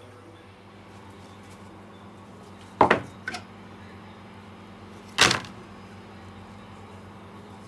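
Two sharp knocks about two and a half seconds apart, the first followed closely by a lighter one, over a steady low hum.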